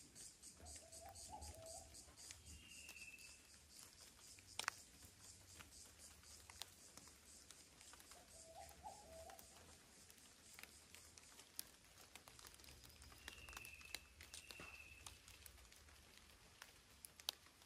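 Quiet forest ambience after rain: scattered faint drips, a low warbling bird call twice and a few short high whistled calls. A fast, even insect chirr runs until it stops about five seconds in.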